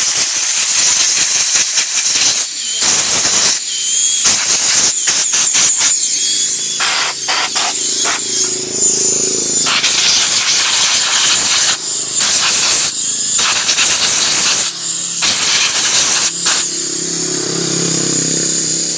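Spray hissing in repeated bursts, some brief and some lasting a second or more, as a motorcycle engine is sprayed clean during an oil change.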